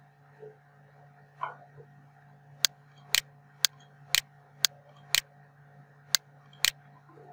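Computer mouse button clicks: a run of about eight sharp clicks roughly every half second, starting about two and a half seconds in, several of them doubled. Under them is a faint steady hum.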